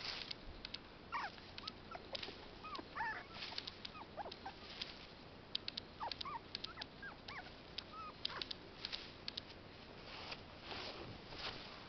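Morkie puppy whimpering in short, high squeaks that bend up and down, a dozen or so over the first eight seconds, with crackling rustles in the grass throughout.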